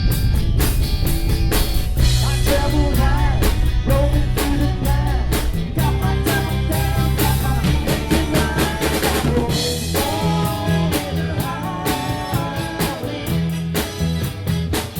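Live rock band playing: a drum kit keeping a steady beat under bass and electric guitar, with a melody line bending in pitch over the top.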